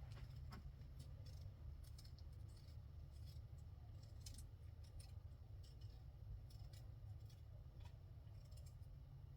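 Near silence: faint, irregular small clicks and snips over a low steady rumble.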